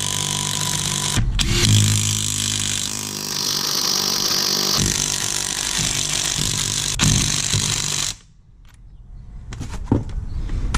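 Cordless impact wrench hammering lug nuts tight on a car wheel, in long trigger pulls with a brief break about a second in. It stops abruptly about eight seconds in, and a few sharp clicks follow near the end.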